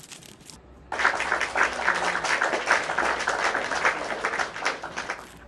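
Crowd applause, a dense patter of many hands clapping, starting abruptly about a second in and lasting about four seconds before dying away near the end.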